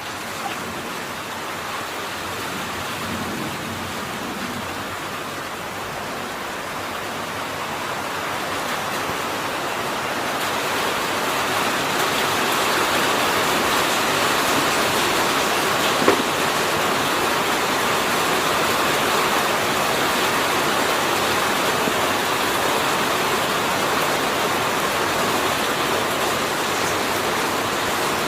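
Steady rain falling, an even hiss that grows louder over the first dozen seconds and then holds, with one sharp tap about sixteen seconds in.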